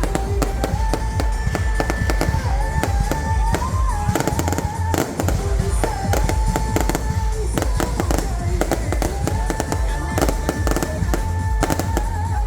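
Fireworks display: a dense run of sharp bangs and crackles, several a second, over a deep rumble. Music with a held, wavering melody line plays along underneath.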